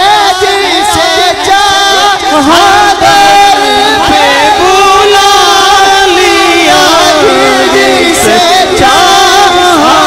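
A man singing a devotional naat into a microphone, drawing out long wavering, ornamented notes without clear words, over a steady held drone tone.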